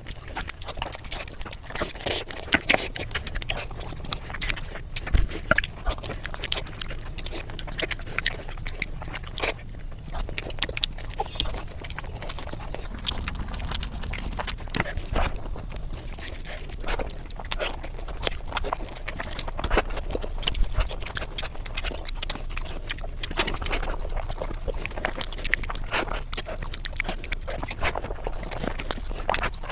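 A person chewing and smacking while eating chicken biryani, with many irregular clicks and crunches.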